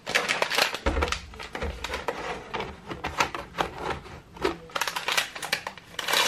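A hot chocolate sachet being crinkled and torn open close up: a dense run of sharp crackles and snaps, with a low thud about a second in.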